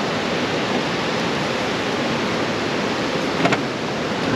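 Steady rush of fast-flowing river water, with a short click about three and a half seconds in.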